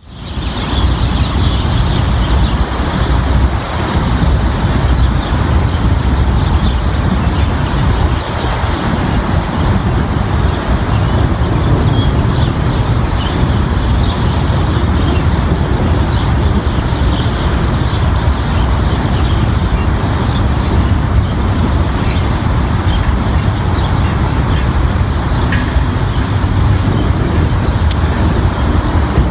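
Severe thunderstorm's wind and rain as a steady, dense rushing noise, with a heavy low rumble of wind buffeting the microphone.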